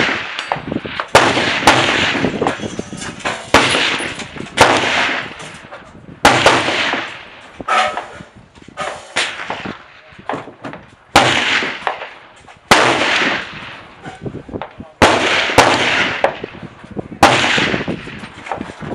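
A string of rifle shots, about a dozen at irregular intervals, each a sharp crack followed by a long echo that dies away over about a second.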